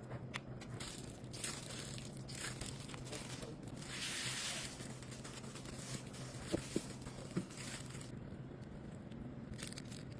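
Crinkling and rustling handling noise, with a denser hiss about four seconds in and a few sharp clicks a little later, over a faint steady hum.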